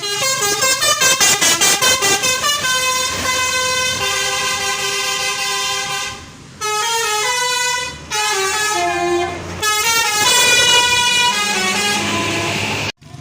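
Telolet horn on a tour bus playing a loud multi-note tune: a fast pulsing run of about five notes a second, then held notes and stepping melodic phrases, cutting off suddenly near the end.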